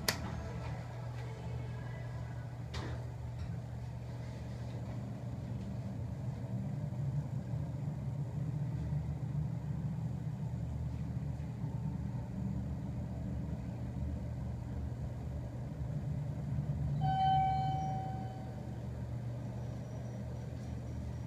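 Montgomery hydraulic elevator travelling, its drive giving a steady low hum inside the cab. A couple of sharp clicks come in the first few seconds, and a single clear chime sounds for about a second near the end.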